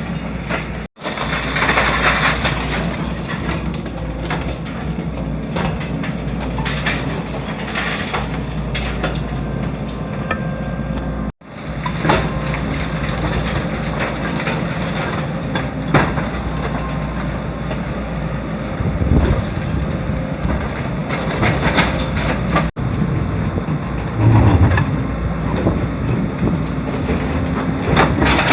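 Excavator's diesel engine running steadily while its bucket knocks and crunches irregularly against concrete debris during demolition. The sound drops out briefly three times.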